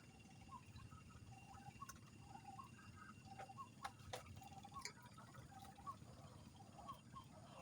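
Faint night ambience: many short chirping calls, repeating irregularly, with a few sharp clicks.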